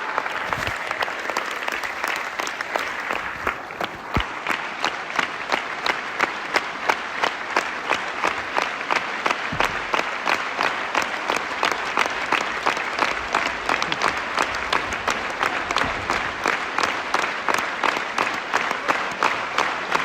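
Theatre audience applauding. About six seconds in, the clapping falls into rhythmic unison, at about two to three claps a second.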